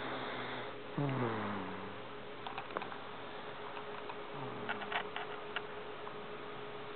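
Sleeping baby snoring and breathing noisily. A breathy inhale is followed about a second in by a short voiced sound that falls in pitch, and a fainter one comes near the middle. A few small clicks are scattered in between.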